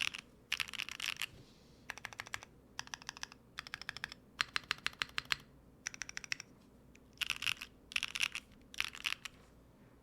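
Typing on a gasket-mounted Neo70 mechanical keyboard with BSUN Sakura linear switches, an aluminium plate, GMK keycaps and no foam. The keystrokes come in quick bursts with short pauses between them and stop about nine seconds in.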